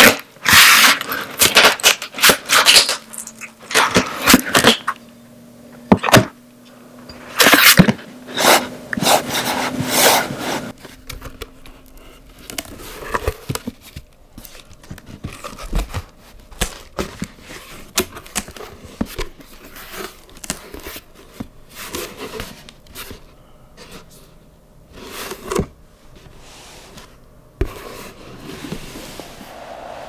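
Packing tape being peeled and ripped off a cardboard shipping box in a run of loud tearing strokes for the first ten seconds or so. After that come softer scrapes and rustles of cardboard flaps and packing being folded back and a boxed item slid out.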